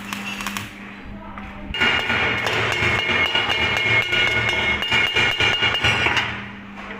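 Steel being struck rapidly with a hammer, a fast run of metallic knocks with a ringing tone, lasting about four seconds, starting near two seconds in and stopping shortly before the end.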